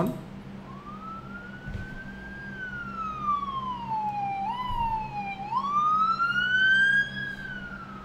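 AI-generated ambulance siren sound effect from ElevenLabs' text-to-sound tool: a slow wail that rises, sinks to a low point with a brief hitch, then rises again and starts falling near the end.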